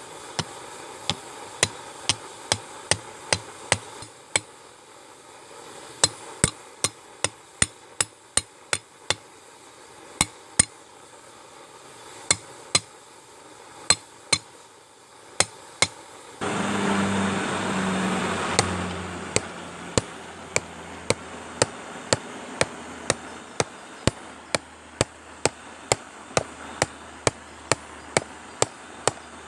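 Hand hammer striking hot mild steel on an anvil: many sharp, ringing blows in irregular runs of about one or two a second, forging a steel punch. About halfway through, a louder rushing noise with a low hum swells for about three seconds under the blows.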